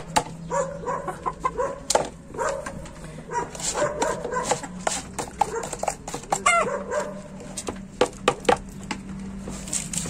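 Hens clucking in short, repeated calls, a few of them rising squawks, over many sharp clicks and rustles of grain and lime being tipped and stirred into the feed.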